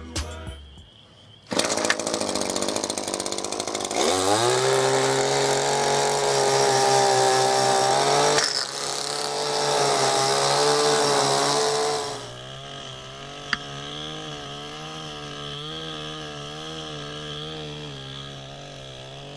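Echo SRM-2620T gas string trimmer's two-stroke engine running. It revs up about four seconds in and is held high with a brief dip midway, then drops back to a lower, unsteady idle for the rest of the time.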